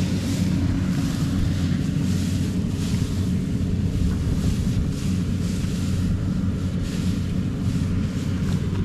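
Steady low drone of a rice combine harvester's engine running, with wind buffeting the microphone and brief rustles of cut rice straw underfoot.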